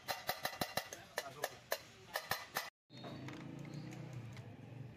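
Hand valve lapping on a Nissan diesel cylinder head: a wooden lapping stick is spun back and forth between the palms, and the valve clicks sharply against its seat several times a second. The clicking cuts off about three seconds in and gives way to a low steady hum.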